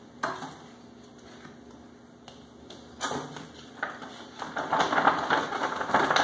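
Glossy paper leaflets rustling and crackling as they are handled and a large folded brochure is unfolded. There is one sharp crackle just after the start, and the rustling grows dense and louder from about halfway through.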